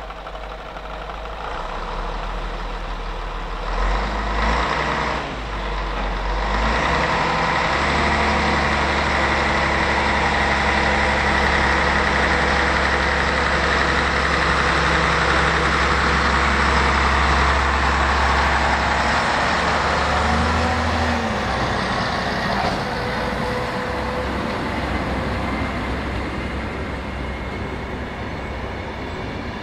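Tka7 rail truck's diesel engine pulling away with two coaches and passing close by: the engine note steps up a couple of times in the first seven seconds, holds loud, then drops about twenty seconds in. After that the coaches' wheels are heard rolling past on the rails.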